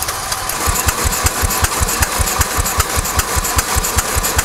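Homemade steam motorcycle's steam engine running unloaded, its generators disconnected, to break in: a steady rapid beat of about six strokes a second over a constant hiss.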